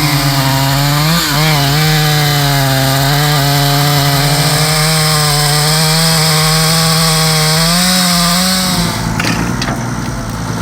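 Chainsaw held at full throttle, cutting into a large tree trunk. Its pitch stays steady apart from a brief wobble about a second in. Near the end the throttle is released and the engine falls to a lower, quieter running note, with a couple of sharp knocks.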